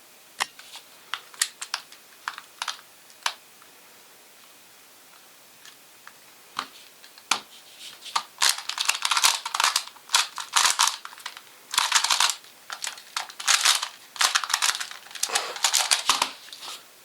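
QiYi Skewb being turned by hand in a solve, its plastic pieces clicking with each turn. The clicks are scattered at first and stop for a few seconds, then come in a long, dense run of fast clacking turns through the second half.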